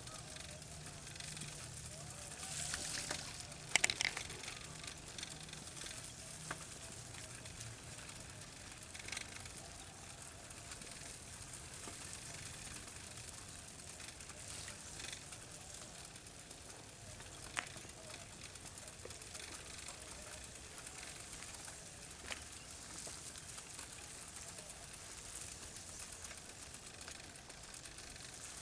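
Outdoor village ambience after rain: a steady hiss with a few sharp clicks, the loudest about four seconds in. A low hum sounds during the first few seconds and then fades.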